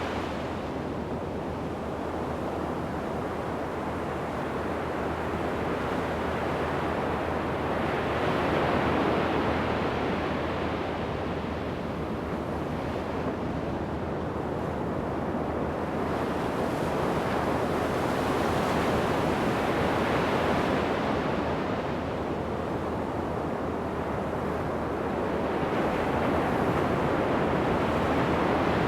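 Ocean surf breaking on a sandy beach, a continuous wash of waves that swells and ebbs every several seconds as each set comes in, with some wind on the microphone.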